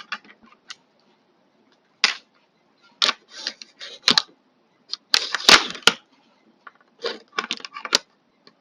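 Plastic casing parts of a Philips Multigroom trimmer being handled and pushed together: irregular sharp clicks and scrapes in short clusters, the busiest about halfway through.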